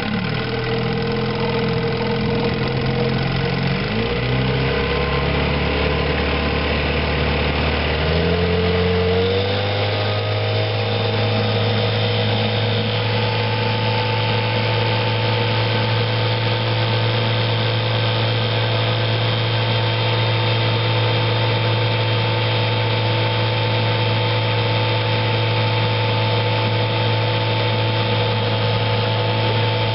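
1960 Johnson 5.5 hp two-cylinder two-stroke outboard motor under way in forward gear. Its note rises in two steps over about the first ten seconds as the throttle is opened, then holds a steady pitch at speed.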